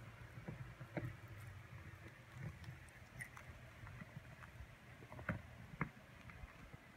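Corgi puppy and miniature dachshund puppy play-biting on a carpet: faint, irregular clicks and rustles, with two sharper clicks a little past five seconds in.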